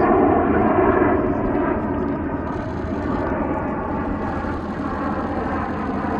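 Jet noise from the Snowbirds' formation of Canadair CT-114 Tutor jets passing overhead, fading over the first couple of seconds and then holding steady as the aircraft draw away.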